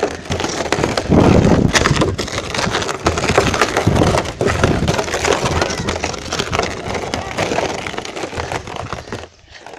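Plastic drum with a person inside rolling over gravelly ground: a loud, continuous crunching and rattling of grit under the barrel, dropping off shortly before the end.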